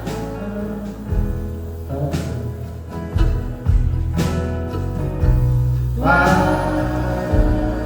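Live band playing an instrumental passage of a folk-rock song: sustained strings and guitar over a heavy bass, with sharp accents about every two seconds.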